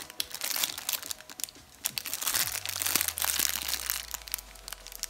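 Clear plastic packaging bag crinkling and crackling as it is handled in the hands, dying down near the end.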